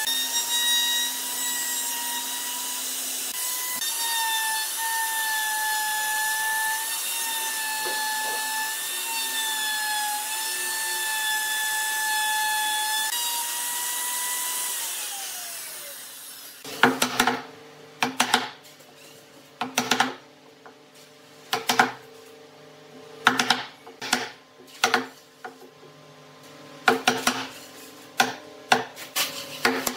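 Maktec MT362 plunge router cutting into a wooden slab, a steady high whine with the noise of the bit chewing wood; about 14 seconds in it is switched off and winds down with a falling pitch. Then a wood chisel is struck repeatedly to square out the routed recess: a series of sharp knocks, a second or two apart at first and quicker near the end.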